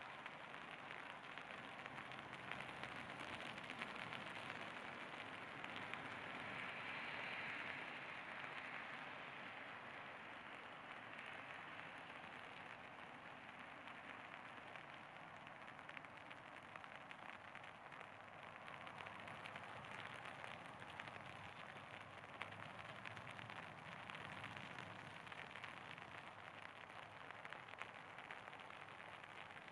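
Steady light rain pattering as a dense, fine crackle, swelling slightly for a few seconds about seven seconds in.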